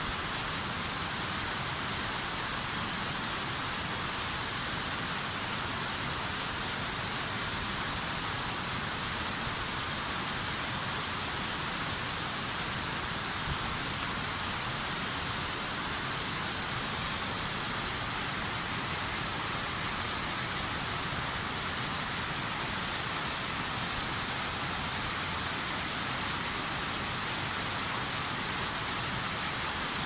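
The Nardis waterfall rushing steadily as it pours down a steep rock face in several streams, an even, unchanging hiss of falling water.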